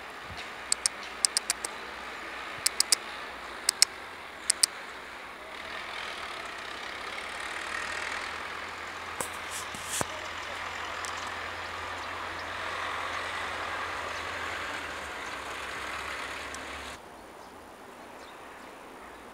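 Motor-vehicle noise: a low engine hum and a wash of traffic sound, swelling about five seconds in and cutting off suddenly near the end. During the first five seconds, a few sharp, high ticks come in quick pairs and threes.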